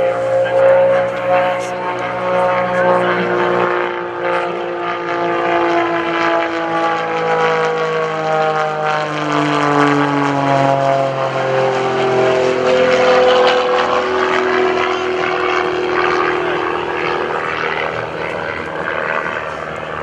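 Pitts S-1S aerobatic biplane's engine and propeller droning through an aerobatic routine, the pitch sliding down through the middle and picking up again a few seconds later.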